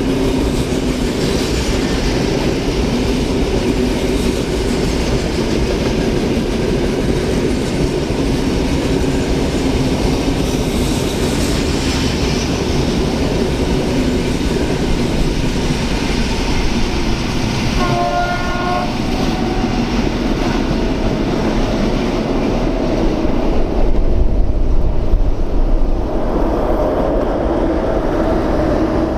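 A train rolling past on the rails with a steady rumble. About two-thirds of the way in comes a short horn blast, and near the end a louder low rumble.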